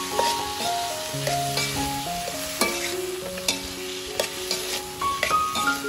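Food frying in a pan with a steady sizzle, and a utensil stirring and striking the pan about six times. Background music with a plucked, stepping melody plays throughout.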